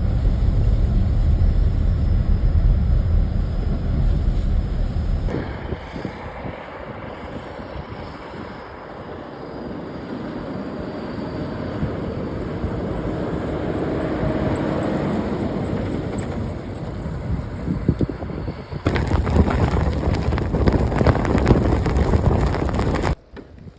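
Blizzard wind buffeting the microphone: a heavy, noisy rumble that drops suddenly to a quieter rushing hiss about five seconds in, then returns loud near the end.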